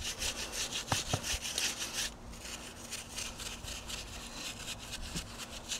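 Stiff bristle brush scrubbing a motorcycle's rear sprocket and drive chain, which are wet with foaming chain degreaser. It makes fast, even back-and-forth scratchy strokes, about seven a second, which get softer after about two seconds.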